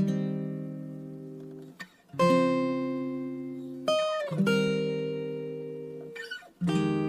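Background music: acoustic guitar chords strummed about every two seconds, each left to ring and fade, with a downward slide about four seconds in.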